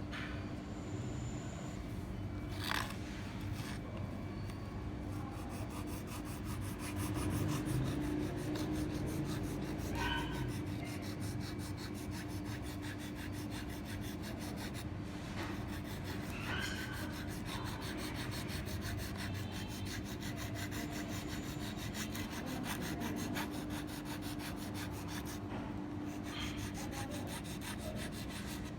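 Rapid, steady scraping on a plastic landing-net handle, roughening it so the fishing line that will bind the crack can grip. A few sharper clicks come through, and a low hum runs underneath.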